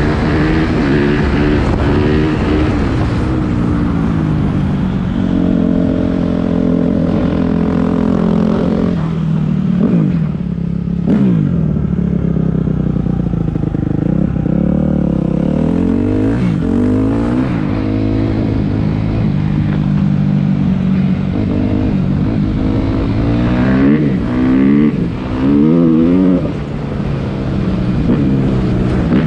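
2014 Suzuki RM-Z250's single-cylinder four-stroke engine being ridden and revved through the gears. Steady stretches of held throttle, a drop and rise in revs about ten to twelve seconds in, and quick repeated rising revs near the end.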